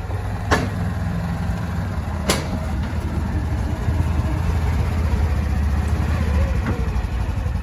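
Polaris Ranger XP1000 side-by-side's twin-cylinder engine running at low speed as it creeps up onto a trailer deck, the rumble growing a little louder as it climbs on. Two sharp knocks sound in the first few seconds.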